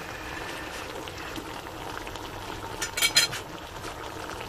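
Pot of kare-kare peanut-sauce stew bubbling steadily on the boil, with a quick cluster of sharp metal clinks, a utensil against the pot, about three seconds in.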